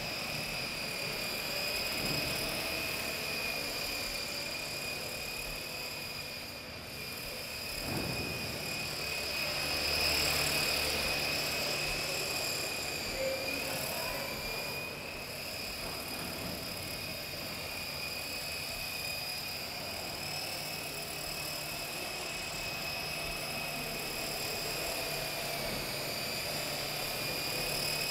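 Art-Tech UFO, a battery-powered four-channel coaxial RC helicopter in a disc-shaped plastic and foam shell, in flight: a steady high whine from its motors and rotors, its pitch dipping a little now and then with the flying.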